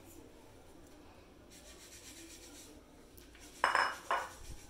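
Two short clinks of kitchenware against a bowl, about half a second apart, near the end, over faint room noise.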